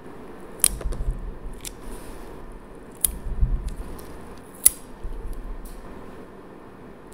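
Close handling noise of clear plastic nail forms and small tools: a few sharp little clicks, the loudest about four and a half seconds in, with dull bumps and rustling against the table.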